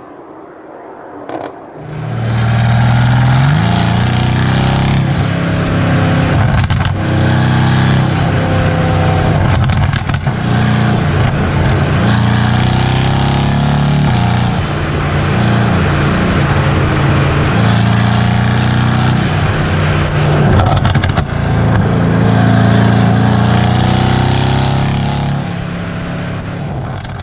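Mercedes-AMG GT S's twin-turbo V8 through an iPE valvetronic exhaust with cat-bypass pipes, starting up to full volume about two seconds in and running hard. Its pitch climbs and steps back down several times, with a few sharp cracks among them, and it fades near the end.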